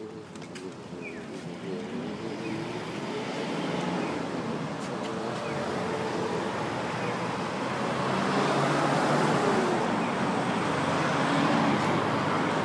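Road noise that grows steadily louder, with traffic passing and the rumble of a hand-pushed wooden cart's hard wheels rolling over paving tiles. A faint wavering tone sounds in the first second or two.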